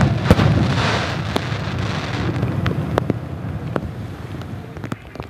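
Fireworks: a dense crackle and hiss from the bursts fades away over about two seconds. A few single sharp reports from further shells follow.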